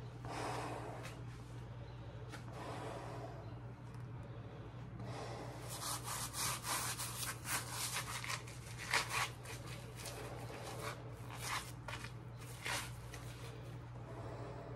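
Breathing through a 3M half-mask respirator in the first few seconds. From about five seconds in, coated work gloves rub and rustle in a run of short scrapes, over a steady low hum.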